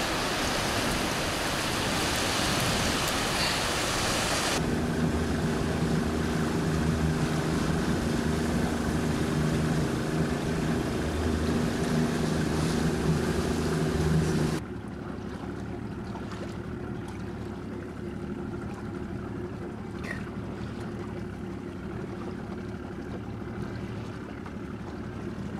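Wind and surf noise for the first few seconds, then a small boat's motor running steadily under way, heard from aboard. About two-thirds of the way through, the motor sound suddenly becomes quieter.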